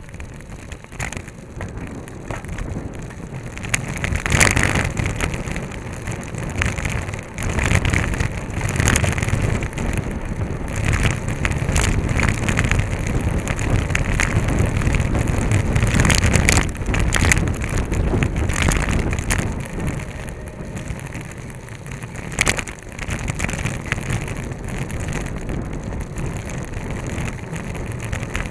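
Wind buffeting the microphone of a handlebar-mounted camera on a moving road bike, with rumble from the tyres on the asphalt and occasional sharp rattles.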